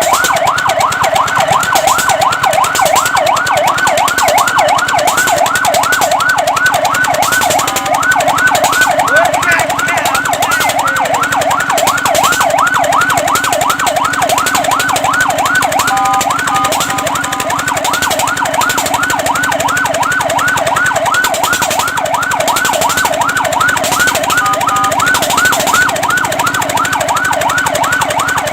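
Fire truck siren on a fast yelp, its pitch sweeping up and down about four or five times a second. The yelp gives way three times to a brief steady tone.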